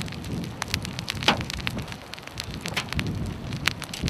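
Storm wind rumbling steadily on the microphone, with scattered raindrops ticking sharply and irregularly on nearby surfaces.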